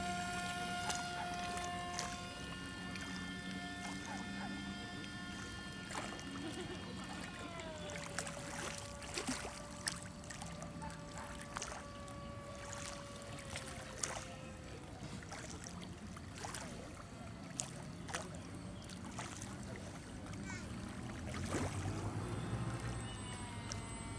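Radio-controlled Icon A5 model seaplane in flight: a steady motor-and-propeller whine that shifts pitch with the throttle, rising right at the start and dropping about eight seconds in and again around fifteen seconds. Scattered sharp clicks sound throughout.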